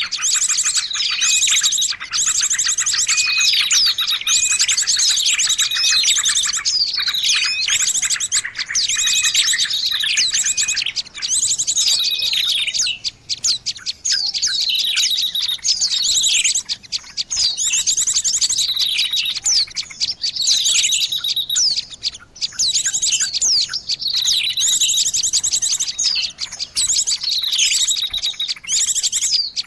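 A dense, noisy chorus of small songbirds played as a lure recording: many overlapping high chirps and fast trills, with calls that sweep downward again and again, and a short note repeated steadily through the first dozen seconds.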